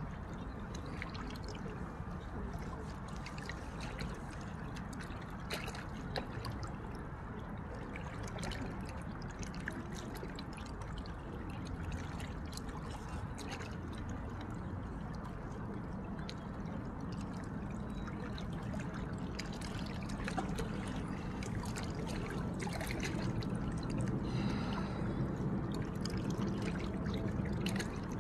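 River water lapping and trickling, a steady low wash with scattered small splashes, swelling slightly near the end.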